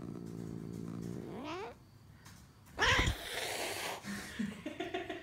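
Long-haired domestic cat growling low and steadily, then giving a rising yowl and, about three seconds in, a loud hissing snarl, followed by short broken growls. These are the warning noises of an annoyed, defensive cat.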